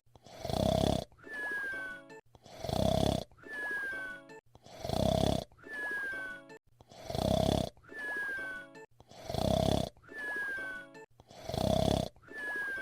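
Cartoon whistle-snore performed by a voice actor: a loud snore on the in-breath followed by a thin whistle that falls in pitch on the out-breath. The cycle repeats evenly about every two seconds, six times over.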